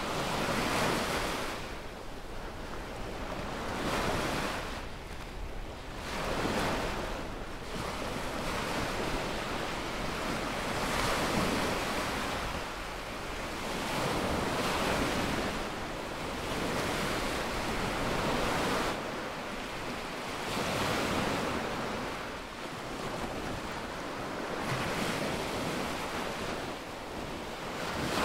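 Small waves breaking and washing up a sandy beach, swelling and fading one after another about every two to three seconds, over a low rumble of wind on the microphone.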